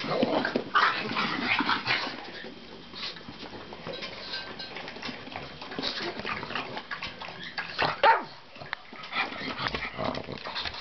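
Excited pug dogs making irregular short dog noises, busiest in the first couple of seconds, with the loudest single sound about eight seconds in.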